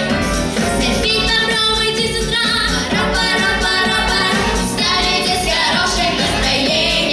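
Vocal trio singing a pop song over a backing track with a steady beat.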